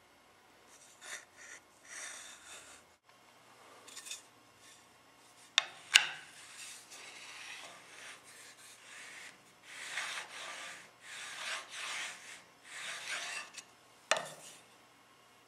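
Uneven rubbing strokes on wood, in short bursts with pauses, and a few sharp knocks.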